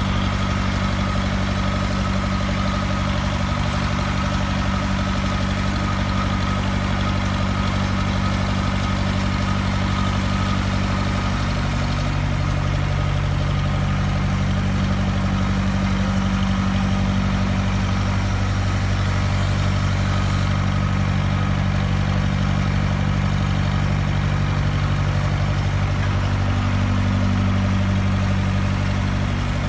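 Automatic double-column bandsaw running while it cuts a large-diameter pipe: a steady low machine hum with a fainter higher whine above it. The low tones shift slightly in pitch a couple of times.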